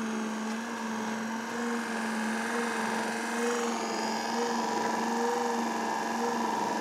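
The two-speed electric wiper motor of a 1968 Triumph TR250 running on low speed from a booster pack, driving the cable rack back and forth through the wheelboxes: a steady motor hum that wavers slightly in a regular cycle. It is a bench test of the freshly installed motor, rack and wheelboxes, which work fine and run quietly.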